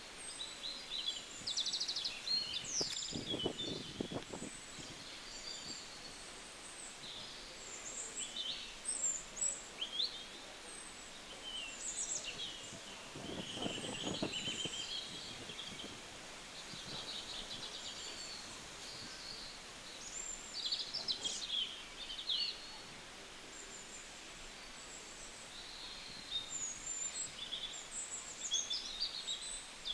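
Outdoor ambience with birds chirping and trilling throughout, many short overlapping calls over a steady background hiss. Two brief, lower, unidentified sounds come in about three seconds in and again near the middle.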